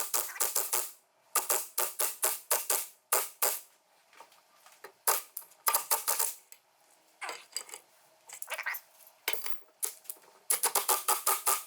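Ratchet wrench clicking in short runs of quick clicks with brief pauses between strokes, turning the screw of a ball joint press to push new U-joint bearing caps into the front axle yoke.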